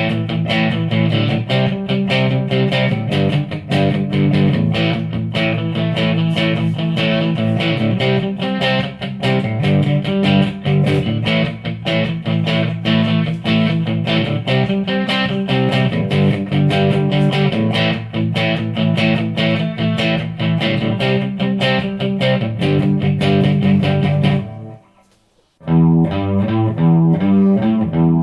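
Electric guitar played through a Line 6 POD Pro rack amp modeler, in a fast, steady picked rhythm. It stops for about a second near the end, then starts again with a different riff.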